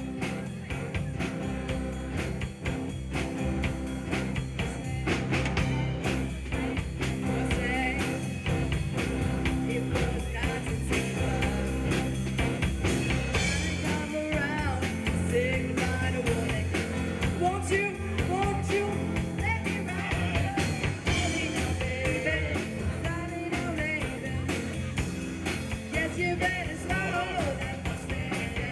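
Rock band playing live at a sound check, with singing over guitar and drums.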